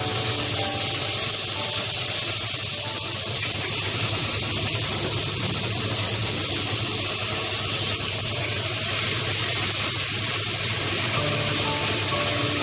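Hot oil sizzling steadily in a pot as soaked dried mushrooms and then pork are tipped in and stirred.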